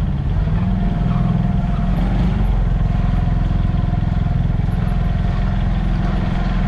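Motorcycle engine running steadily while riding at low speed, with a faint steady whine above the engine note.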